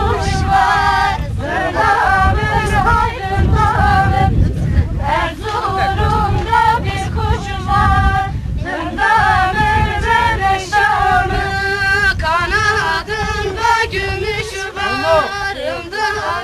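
A group of people singing a folk dance song together, with women's voices to the fore and men's voices joining in.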